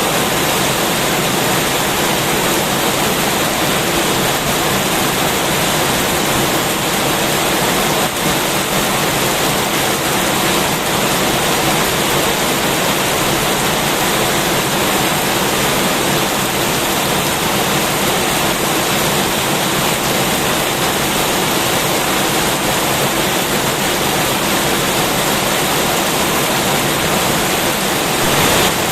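Heavy rain falling, a steady, unbroken hiss of water.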